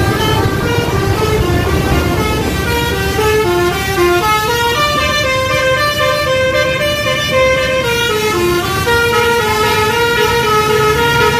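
A bus's telolet basuri horn playing a melody of held notes that step up and down in pitch, over the low running of the bus engine.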